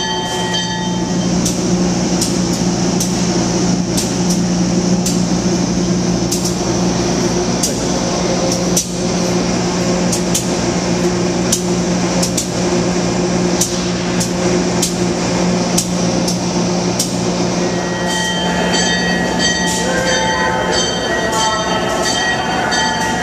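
Amtrak passenger train moving past along a station platform: a steady low hum with repeated sharp clicks from the wheels over the rails. Higher steady whining tones join near the end as an AEM-7 electric locomotive comes alongside.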